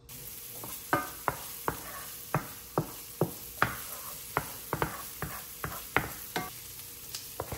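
Onion sizzling as it fries in a pan, stirred with a utensil that clicks against the pan irregularly, about two to three times a second.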